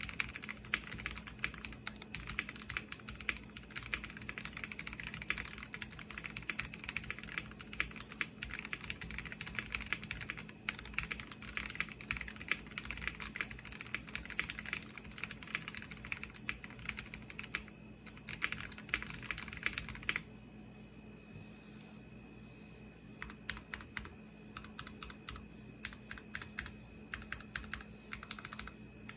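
Typing on a Space65 R3 mechanical keyboard with an aluminium plate, lubed and filmed Cherry Hyperglide black linear switches, GMK keycaps and no case foam. Fast, continuous keystrokes for about twenty seconds, then slower, scattered keystrokes.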